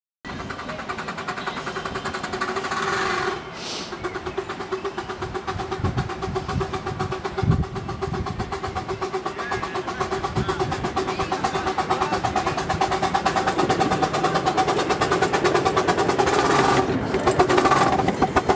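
Miniature steam locomotive working hard up a gradient, its exhaust barking in an even rhythm of about three beats a second. The beats grow louder as it approaches and passes close near the end.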